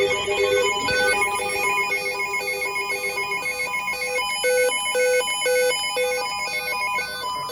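Electronic alert beeps at several pitches, layered and repeating in quick interleaved patterns. A faster, higher warbling tone among them stops about seven seconds in.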